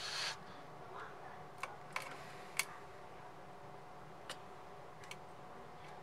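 A few small sharp clicks and taps from hands handling cables and connectors inside an opened PlayStation 5, with a brief rustle at the start. The clicks come irregularly, the loudest about two and a half seconds in.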